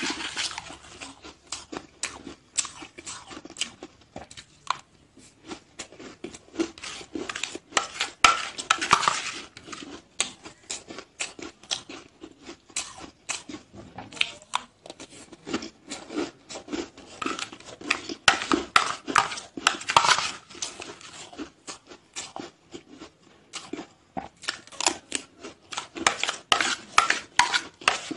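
A plastic spoon scraping and clinking in a glass bowl of powdery ice, with crunching of the ice as it is chewed: a dense run of crisp crackles coming in busier spells.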